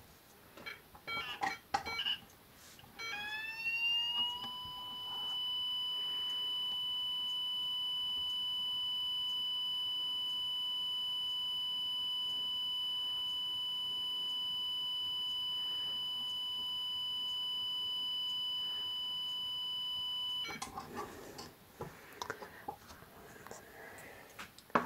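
Cerberus Guinard SIR-24-FC electronic fire-alarm sounder in its continuous-tone mode. After a few clicks, the tone rises in pitch over about a second and a half, then holds one steady high tone for about sixteen seconds and cuts off suddenly. A few handling noises follow.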